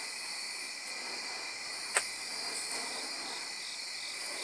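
Steady chirring of night insects with faint, repeated whooshes of burning fire-staff wicks swinging through the air. One sharp click about two seconds in.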